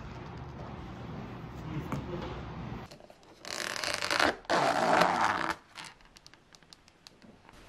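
A steady low hum, then a thin plastic lid pried and pulled off a takeout food container: about two seconds of loud crackling and scraping, followed by a few light plastic clicks.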